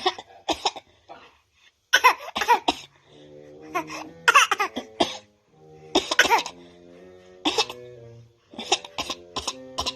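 A person coughing in short repeated fits, mixed with laughing, over background music with held notes that comes in about three seconds in.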